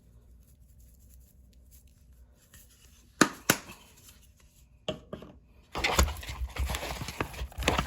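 Kitchen handling sounds from seasoning chicken wings in a pan: a few sharp knocks, then from about six seconds in a continuous rustling and clattering as the seasoning is worked into the chicken.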